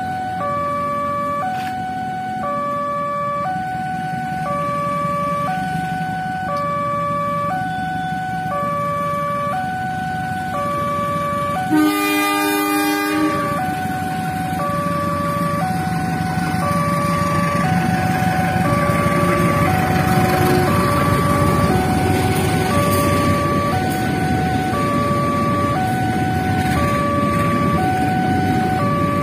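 Railway level-crossing warning bell sounding a steady, repeating two-tone chime. About twelve seconds in a locomotive horn sounds once for about a second, and from about sixteen seconds the rumble of a train of fuel tank wagons grows as it passes over the crossing.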